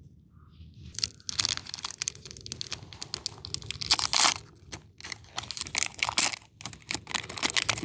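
Foil Pokémon booster-pack wrapper being torn open and crinkled in the hands. It is a dense, irregular crackle of plastic film that starts about a second in.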